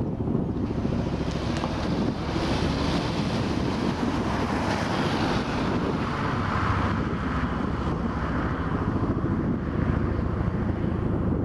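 Chinook tandem-rotor helicopter flying past: a steady, rapid thudding from its rotor blades, with a higher rushing noise that swells in the middle.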